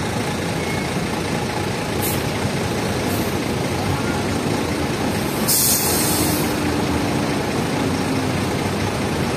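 Diesel engines of tour coaches running in slow, queued traffic. Air brakes hiss: two short bursts about two and three seconds in, then a louder hiss lasting about a second, about five and a half seconds in.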